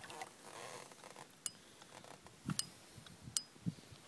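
Quiet handling noise in a small fishing boat: three sharp clicks and a couple of soft knocks over a low hiss.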